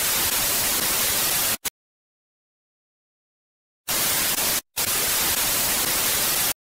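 TV-static hiss sound effect of a glitch transition. It runs for about a second and a half and cuts off suddenly, then there are two seconds of dead silence, then the static returns in two chunks with a brief break between them and cuts off suddenly near the end.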